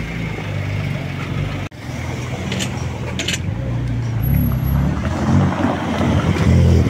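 Porsche 911 Turbo's twin-turbocharged flat-six running at low speed as the car idles and creeps off, getting louder near the end as it pulls past close by.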